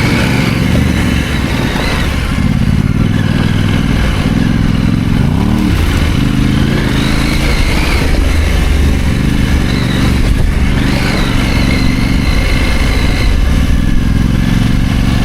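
Husqvarna Norden 901's parallel-twin engine running at low revs on a trail ride, the revs rising and falling with the throttle, with a quick blip about five seconds in.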